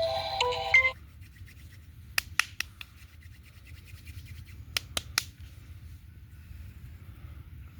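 Oil massage: faint rubbing of hands on skin, with three sharp clicks in quick succession about two seconds in and two more around five seconds. A short tune ends about a second in.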